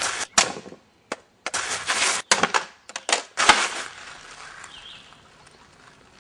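Swords knocking against each other in a partnered two-handed sword drill, several sharp clacks mixed with scuffing noise, dying down after about four seconds.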